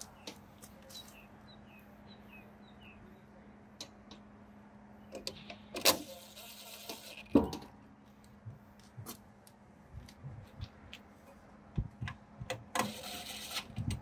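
Cordless power driver running screws into a panic bar's metal end cap in two short runs of about a second each, one about six seconds in and one near the end. Sharp metal clicks and taps from handling the cap and driver come between them.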